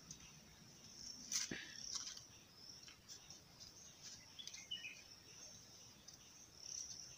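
Faint snips of scissors cutting chart paper, the sharpest about a second and a half in. A steady high-pitched chirring runs underneath, and a short falling chirp comes about four and a half seconds in.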